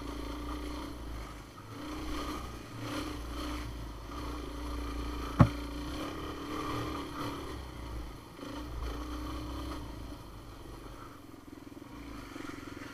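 Off-road vehicle's engine running at low trail speed, its note swelling and easing as the throttle is worked. About five seconds in there is a single sharp knock.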